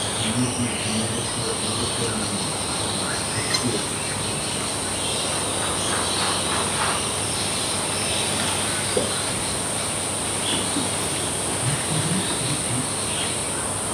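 Steady, high-pitched drone of an insect chorus, with scattered faint chirps over it.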